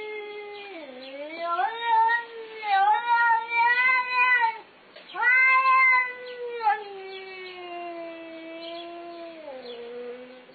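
Domestic cat giving a long, eerie drawn-out yowl while eating dry kibble. It breaks off about halfway, then starts a second long yowl whose pitch wavers and sinks lower as it fades near the end.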